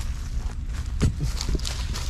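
A few dull, irregular knocks about halfway through, over a steady low rumble.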